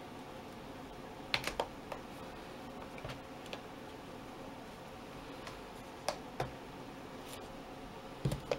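Scattered clicks and taps from handling the Acer ICONIA W700D tablet and its Bluetooth keyboard cover, coming in small clusters of two or three over a steady faint hiss.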